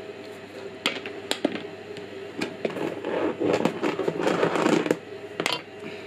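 Handling noise of plastic-sheathed 4 mm banana-plug test leads: two sharp clicks about a second in, a longer stretch of rubbing and scraping in the middle, and another click near the end.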